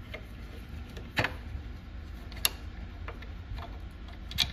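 Small metallic clicks and ticks as a hex key works a loosened chainring bolt out of a Wahoo KICKR Bike crank. Sharp clicks come about a second in and again about two and a half seconds in, with fainter ticks between and a quick cluster near the end.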